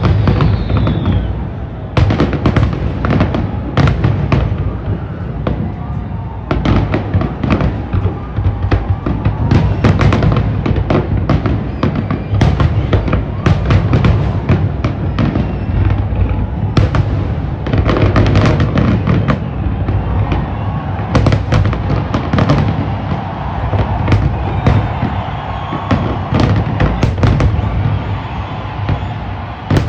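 Fireworks display bursting in rapid, dense volleys of bangs and crackles over a continuous low rumble, with music playing underneath.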